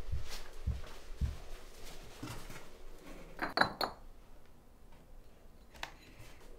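Empty green glass soju bottles clinking against each other in a cardboard box as one is lifted out. There are a few quick clinks about three and a half seconds in and one more near the end, with a few soft low thuds at the start.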